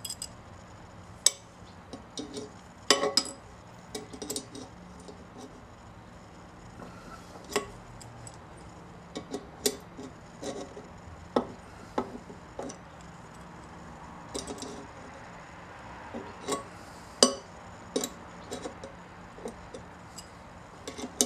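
Irregular metallic clicks and clinks of hand tools working on a Victor induction phonograph motor as a nut is tightened down, with a few sharper clinks standing out.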